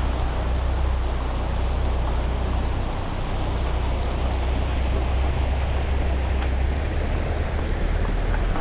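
Steady road rumble of a car driving, a deep unbroken drone with a hiss of tyre and wind noise over it.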